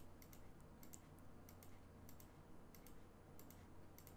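Faint, irregular computer mouse clicks, a dozen or so, over near silence with a low steady hum.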